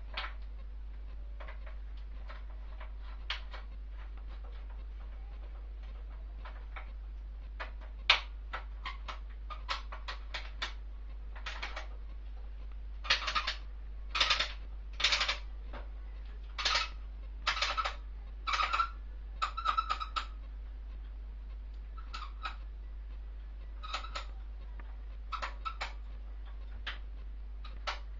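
Metal motorcycle fork parts and hand tools clinking and scraping as they are fitted together by hand. Scattered light clicks give way to a run of louder metallic clatters about halfway through.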